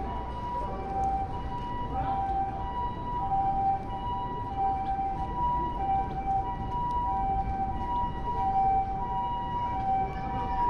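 Ambulance siren sounding the Japanese two-tone hi-lo "pee-po" pattern, a higher and a lower note alternating about every half second, over a steady background of city noise.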